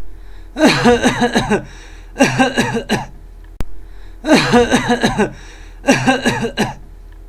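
A person coughing hard in four voiced bouts, each about a second long, over a steady low hum.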